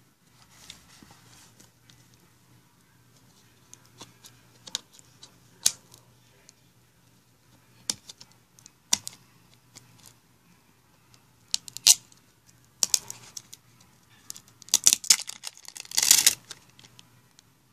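Plastic juice bottle being handled and its label peeled off: scattered sharp clicks and crinkles of plastic, then a denser run of crackling near the end as the label comes away.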